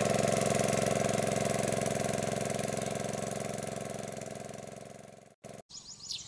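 Small engine-driven water pump running steadily as it drains a pond, fading out about five seconds in. After a short gap, a few bird chirps near the end.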